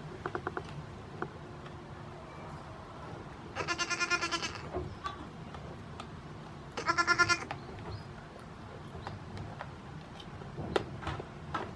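Young goat bleating twice: a quavering bleat about a second long, then a shorter one about three seconds later. A few faint clicks are heard near the start and the end.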